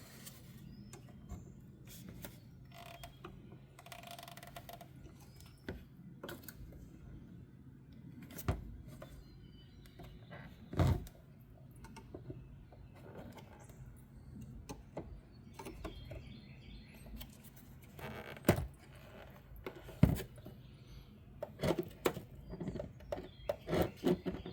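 Scattered plastic clicks and knocks as the four plastic tabs on the back of a tail-light assembly are worked loose to free the bulb housing. The clicks come a few seconds apart and grow busier near the end, over a faint steady hum.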